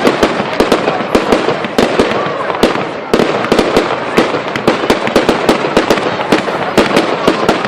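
Fireworks display: a rapid, irregular string of loud bangs and crackles, several a second, over a dense steady hiss.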